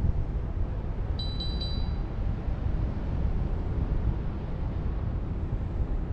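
Wind buffeting the microphone in paragliding flight, with a quick run of high electronic beeps from a flight variometer about a second in, lasting under a second.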